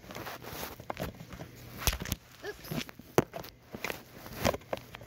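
Handling noise from a phone camera being picked up and moved: irregular knocks, bumps and rubbing rustles, with no steady rhythm.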